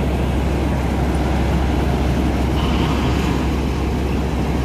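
Engines of a Gill 961 combine harvester and the tractor pulling the grain trolley running steadily side by side, a deep, even hum.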